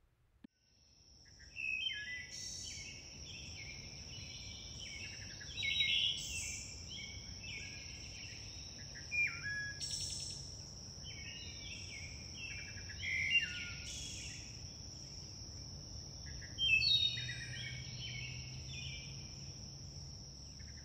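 Birds singing in short, varied phrases over a steady, high-pitched insect trill, with a faint low hum underneath.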